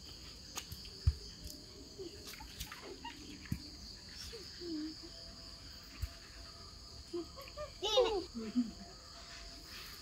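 Steady high chirring of crickets, with a few light knocks and clicks of handling. About eight seconds in comes a brief high-pitched voice sound that rises and falls.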